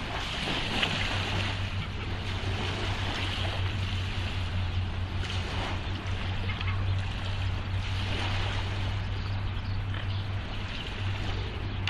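Water ambience: waves lapping with a steady noisy wash and a constant low hum underneath.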